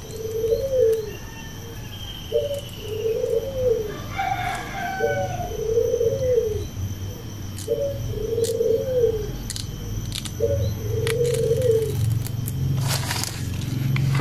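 A dove cooing over and over, each phrase a short note followed by a longer rising-and-falling coo, repeating about every two and a half seconds. Scattered sharp clicks sound through it, a low rumble builds in the last few seconds, and there is a brief rustle near the end.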